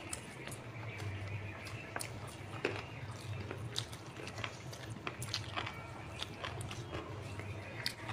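Close-miked eating of rice and chicken curry by hand: irregular wet clicks and smacks of chewing and lips, mixed with the soft squish of fingers working the rice, over a low steady hum.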